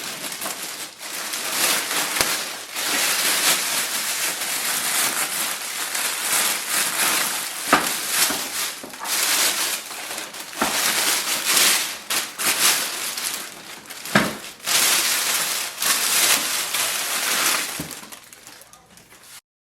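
Plastic packaging bag crinkling and rustling as it is pulled off a printer, with a couple of sharp knocks; it fades and stops abruptly near the end.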